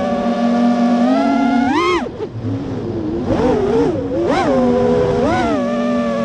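FPV racing quadcopter's brushless motors and propellers whining at a steady pitch, rising sharply with a throttle punch just before two seconds in and then dropping off. A few short surges follow, about one a second, before the pitch settles steady again near the end.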